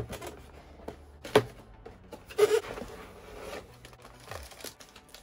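A cardboard model-kit box being opened and its parts taken out: a sharp knock about a second and a half in, then the crinkle of plastic bags holding the kit's sprues, with small clicks and rustles throughout.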